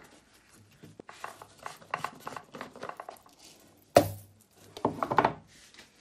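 Plastic food container and lid being handled while rolled oats are emptied out of it: light clicks and rustles, a sharp knock about four seconds in, then a short clatter about a second later.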